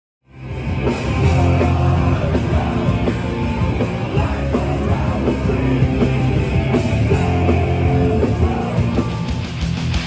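Hardcore punk band playing loud, distorted guitars, bass and drums under shouted vocals. The music cuts in abruptly from silence a fraction of a second in.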